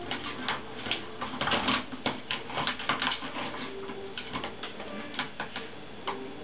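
Ball in a cat's track-ball toy rattling and knocking around its track as kittens bat at it: a run of quick, irregular clicks, busiest a second or two in and thinning out toward the end.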